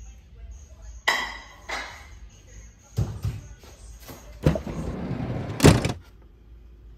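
Cookware clatter at a frying pan of spaghetti: a few separate knocks, then a stretch of scraping and a sharp, loudest clank near the end.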